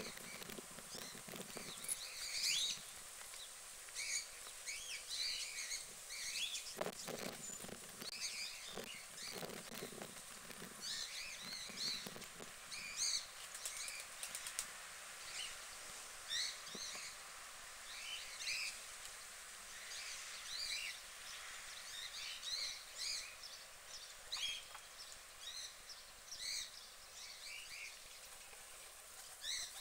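Small birds chirping and calling in the background, many short high notes scattered throughout, with a few soft low thumps about a third of the way in.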